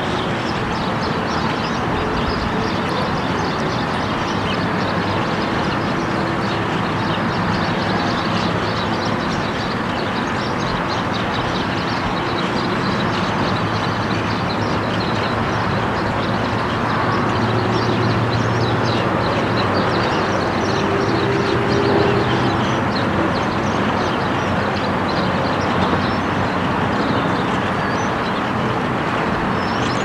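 A flock of birds chattering, many short high calls overlapping without pause, over a steady low rumble.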